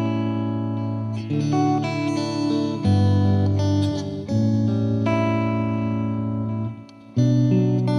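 Background music led by guitar, with sustained chords changing every second or so and a brief drop just before the end.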